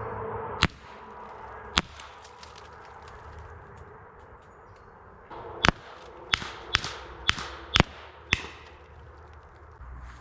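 Semi-automatic .25 calibre PCP air pistol firing: two sharp cracks about a second apart, then after a pause six more in quick succession, roughly two a second.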